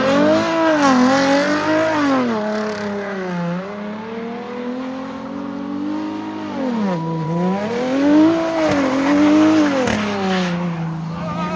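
Car engine revving up and down several times as the car is slid around in the snow with traction control off, its pitch rising and falling with the throttle.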